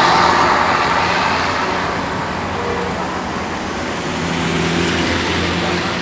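Road traffic: a vehicle passes with engine drone and tyre rush that fades away over the first couple of seconds, and another vehicle approaches about four seconds in.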